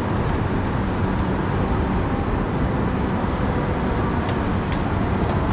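Steady low rumble and hum heard from inside an airport passenger shuttle, with a couple of faint clicks about four seconds in.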